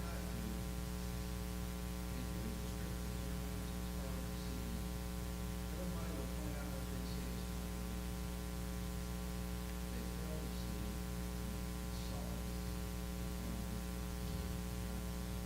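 Steady electrical mains hum with a buzz of many evenly spaced overtones. Faint off-microphone voices come and go beneath it.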